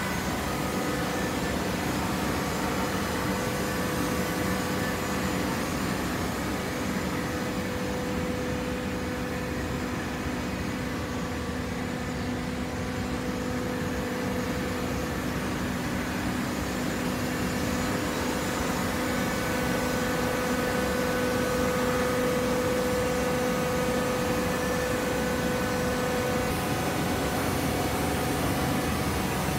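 Hydraulic cardboard baler running, a steady machine hum with a constant whine that grows somewhat louder for a while in the second half.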